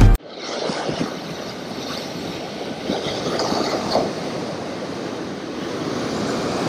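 Ocean waves washing in a steady, rushing noise that slowly swells and eases, just after background music cuts off abruptly at the very start.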